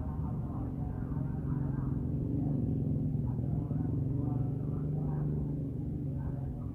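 Passenger train coaches passing close by: a steady rumble of wheels on rail with a low hum, swelling a little louder in the middle.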